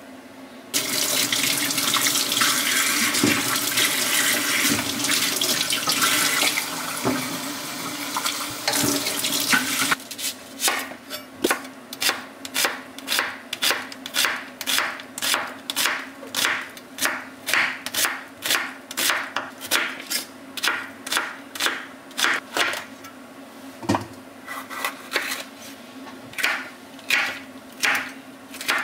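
Tap water running into a stainless steel colander of vegetables for about nine seconds. Then a chef's knife chopping on a wooden cutting board in steady strokes, about two a second, dicing an onion and then a red bell pepper.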